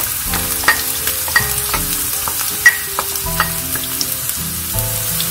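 Chopped onions and freshly added minced garlic sizzling in hot olive oil in a nonstick frying pan while being stirred, with a few sharp knocks against the pan.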